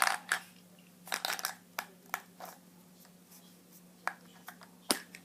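Hands opening a small plastic surprise egg: scattered plastic clicks and crinkling rustles, with one sharp click near the end.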